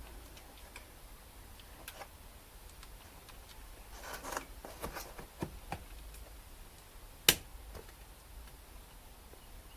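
Small clicks and taps of the Zenith-Stromberg 150CDS carburettor floats being clipped back into place, with one sharp click about seven seconds in.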